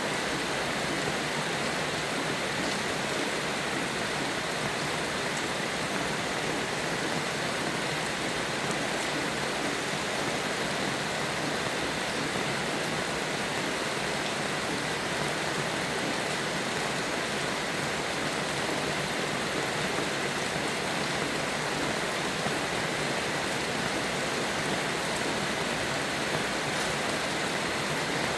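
Steady heavy rain falling, a constant even hiss with faint scattered drop ticks.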